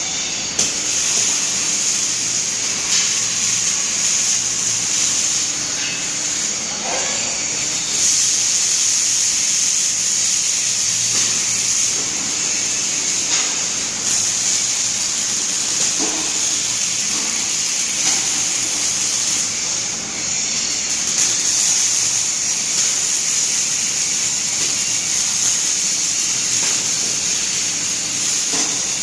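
Steady, loud hiss from an articulated robot's welding or cutting torch at work, keeping up without a break.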